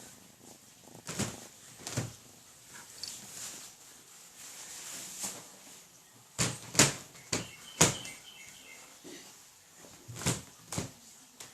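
A scattering of short knocks and thumps, about seven in all, bunched in the middle of the stretch, with quieter rustling between them.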